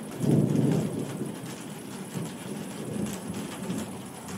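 Thunder rumbling, loudest just after the start and then fading into a weaker, uneven rumble, over the steady hiss of falling rain.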